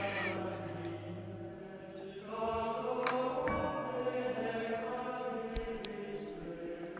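Slow choral chant with long held notes, the chord changing about two seconds in, with a few faint clicks.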